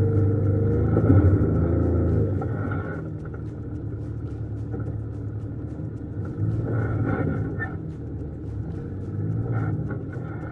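Off-road vehicle engine running with a low rumble. It swells louder for the first couple of seconds, again about two-thirds of the way through and briefly near the end, as the throttle is opened.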